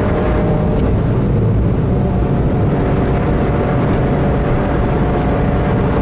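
Heavily modified Toyota GR Yaris at high speed, heard from inside the cabin: its turbocharged three-cylinder engine running under load over loud, steady tyre and road noise.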